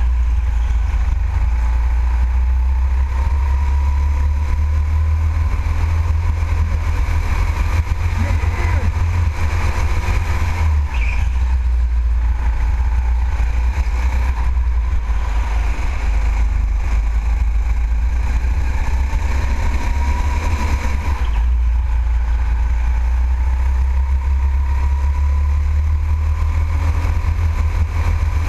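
Go-kart running flat out on a racing lap, heard from on board the kart: a heavy low rumble with a fainter whine that rises and falls as the kart speeds up and slows through the corners.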